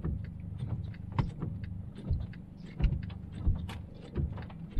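Inside a moving car's cabin: a steady low rumble of road and engine noise, with irregular light ticks and knocks scattered through it.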